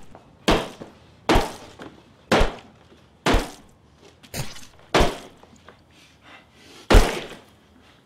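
Seven heavy, sharp blows as a body is bludgeoned again and again with an object swung by hand. They come roughly a second apart, each with a short crunching tail, and the last and loudest hit comes after a longer pause.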